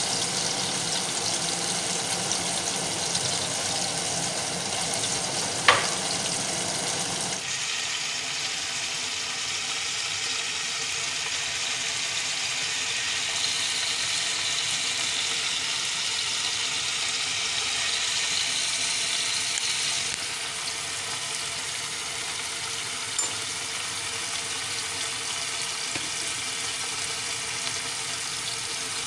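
Rump steak sizzling in oil in a non-stick frying pan, a steady frying hiss. A single sharp click about six seconds in, and the sizzle turns thinner about seven seconds in.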